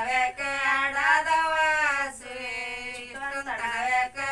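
Unaccompanied female singing of a Kannada folk song, in long drawn-out phrases with short breaks between them.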